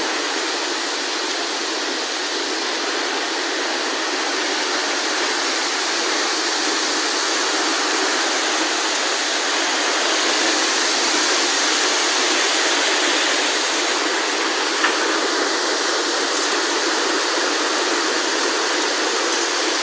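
Fast-flowing floodwater rushing past in a steady, unbroken torrent.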